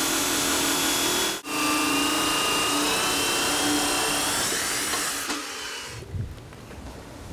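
A metal-cutting chop saw runs steadily through a steel linear bearing rail, with a high-pitched whine over the cutting noise and a momentary break about a second and a half in. The cut ends about five seconds in and the blade winds down.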